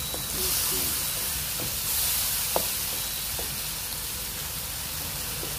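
Onion-tomato masala frying in a pot with a little water, sizzling steadily and swelling louder twice in the first half. A sharp click about two and a half seconds in, among a few smaller ticks.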